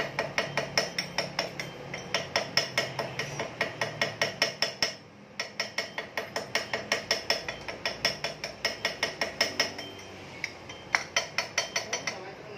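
Metal ratchet clicking rapidly, about five clicks a second, in runs with two short pauses, as a ratcheting thread-cutting tool is turned on the scooter's crankshaft end to re-cut its stripped thread.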